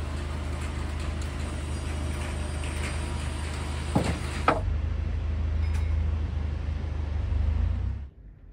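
Vehicle engine running with a steady low hum. There are two sharp knocks about four seconds in, and the sound cuts off suddenly near the end.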